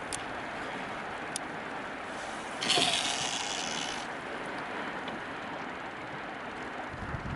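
Steady wind and water noise around a kayak on open water, with a few faint clicks near the start. A brief, louder hissing rush comes about two and a half seconds in and lasts about a second and a half.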